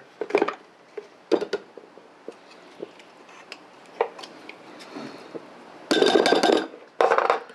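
Clear plastic chopper bowl and a metal spoon knocking and clinking against a ceramic mug as chopped pickles are tipped and scraped out of the bowl into mayonnaise. A few scattered knocks come first, then two louder stretches of rapid scraping and tapping near the end.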